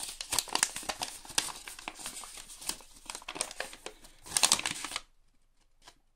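Folded paper invoice being unfolded and handled: a run of crinkling and crackling, with a louder burst of rustling about four and a half seconds in.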